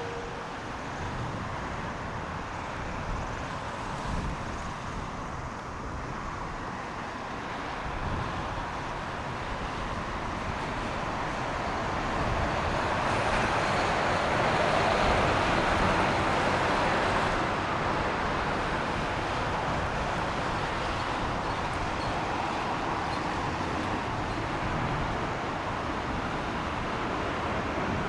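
Jet airliner on landing approach: a steady rush of engine noise that builds to its loudest about halfway through and then eases off a little.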